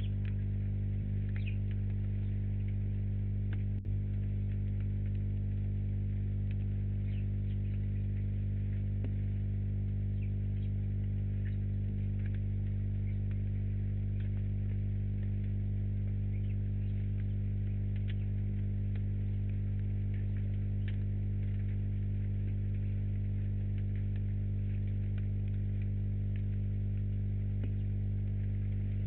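Steady electrical mains hum with a stack of even overtones, picked up by a bird-feeder webcam's audio, with faint scattered ticks above it.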